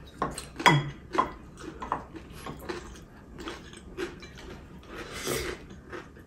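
Spoon and chopsticks clicking and scraping against ceramic bowls during a meal, with a loud clink just under a second in. A short rush of noise comes about five seconds in.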